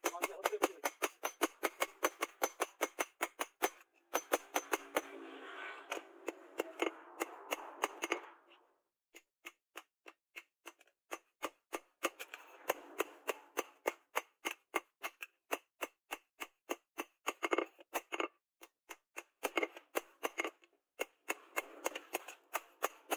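Hand hammer beating a steel trowel blank on a steel post anvil in fast, even blows, about five a second, in runs with brief pauses between them.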